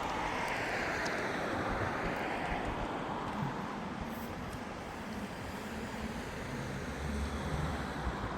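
Sea waves washing in: a steady rush of surf that swells and fades over the first few seconds. Wind buffets the microphone with a low rumble near the end.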